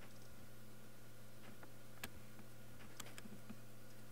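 A few sharp computer mouse clicks, the clearest about two seconds in and twice close together about three seconds in, over a steady low hum.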